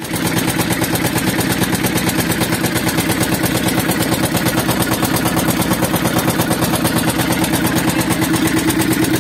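A small fishing boat's engine running steadily, with an even, rapid beat.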